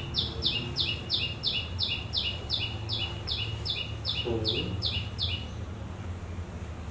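A bird chirping: a quick, high two-note call, a falling note then a lower one, repeated about three times a second for about five seconds before it stops.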